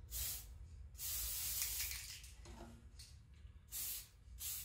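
Aerosol spray paint can hissing in four bursts: a short one, a longer one of about a second, then two short ones near the end, as paint is sprayed onto the inside of a clear Lexan RC car body.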